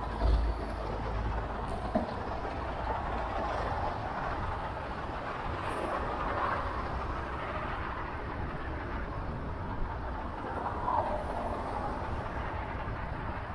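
Steady road and traffic noise heard while riding a bicycle through city streets, with a short low thump right at the start.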